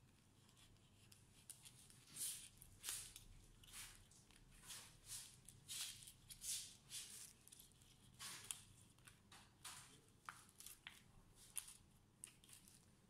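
Faint, irregular scratchy rasps of a plastic playing card being worked along the edge of a laptop screen's plastic bezel and hinge.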